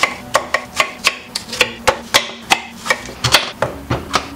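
Large kitchen knife chopping apples into chunks on a wooden cutting board, each stroke knocking against the board, about four a second in an even rhythm.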